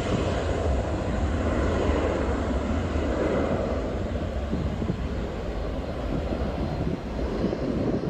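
Airplane engine noise, a steady rumble with a hiss on top, as in a sound-effect recording of an aircraft.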